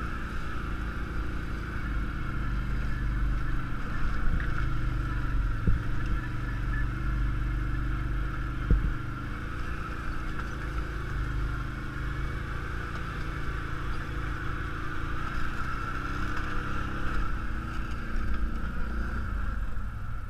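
ATV engine running at low trail speed, heard from on board, its pitch shifting a little as it works over a rocky track. A few sharp knocks and some clatter come as the machine jolts over rocks, the loudest about nine seconds in.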